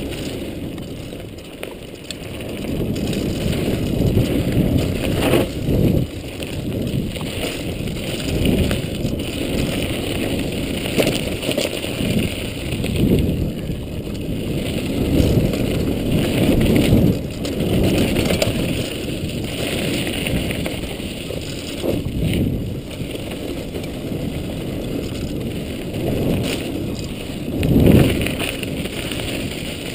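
Mountain bike running fast down a dry dirt trail: a continuous rumble of tyre noise and wind on the microphone, with the bike rattling and knocking over bumps and a harder jolt near the end.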